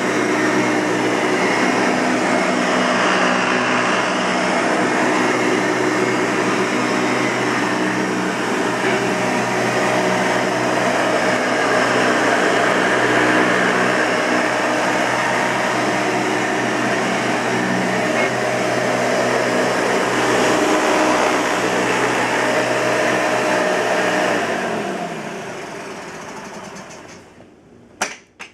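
1992 Hoover Elite 200 upright vacuum cleaner running steadily, then switched off about 24 seconds in, its motor winding down over a few seconds. Two sharp clicks near the end.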